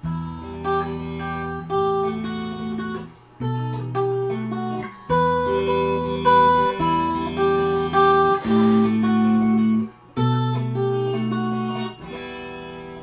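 Squier Classic Vibe Starcaster semi-hollow electric guitar played in a slow classical-style piece, single notes picked over held bass notes, with short breaks between phrases. A brief scrape sounds about two thirds of the way through.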